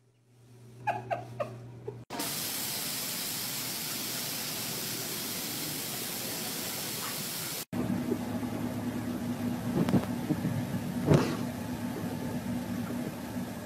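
A few short squeaks, then a steady loud hiss, then a car engine idling with a steady low hum and one sharp knock.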